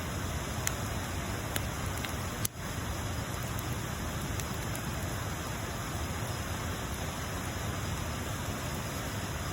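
Wood bonfire burning, a steady hiss of flame with scattered sharp pops and crackles; the loudest pop comes about two and a half seconds in.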